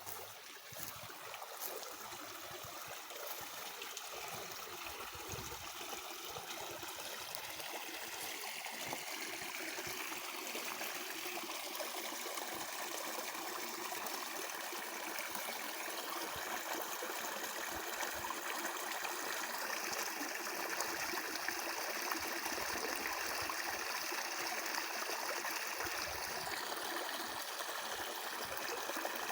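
A stream flowing in a steady rush, growing gradually louder over the first half.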